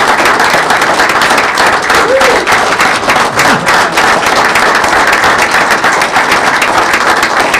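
Sustained applause from a roomful of people giving a standing ovation, dense steady clapping with a brief voice or two heard over it.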